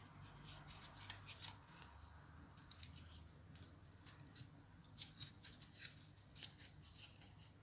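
Faint, scattered rustles and soft scratches of wool yarn being pushed and pulled through the centre hole of a card braiding disc, in short bursts about a second in and again between about five and seven seconds.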